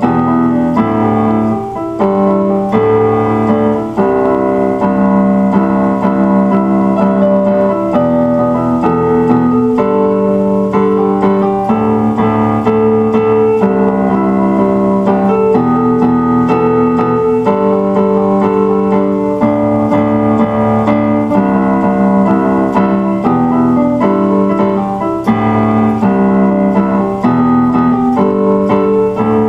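Electronic keyboard playing slow piano-voiced chords over a bass note, the chord changing about every two seconds.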